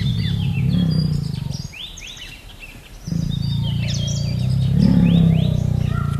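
Tiger growling in two long, low, rumbling stretches, the second starting about three seconds in, while small birds chirp.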